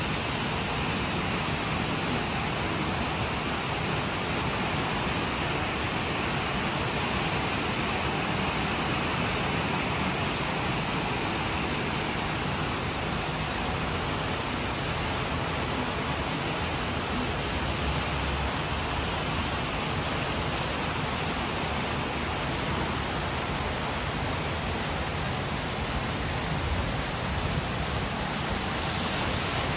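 Rain falling steadily: an even, unbroken hiss with no let-up.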